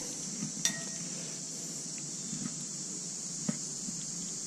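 Fishing reel being cranked to bring in a hooked fish, giving soft, irregular ticking with a sharper click near the start, over a steady high buzz of insects.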